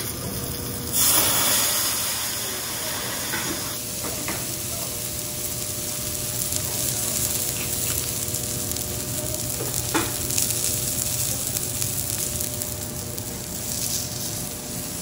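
Wagyu fillet cubes sizzling steadily on a hot steel teppanyaki griddle. A louder hiss rises about a second in and lasts roughly three seconds, and there is a single sharp tap about ten seconds in.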